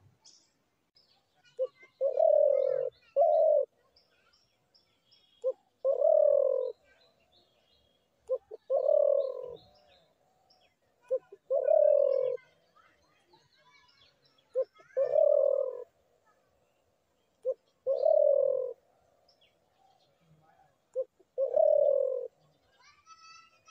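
Spotted dove calling: a short note followed by a longer coo, repeated seven times at about three-second intervals. Faint chirps from small birds sound in the background.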